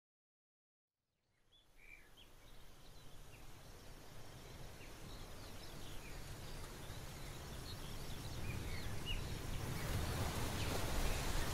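Silence for about a second, then an outdoor ambience fades in and grows steadily louder: an even wash of noise with scattered short bird chirps.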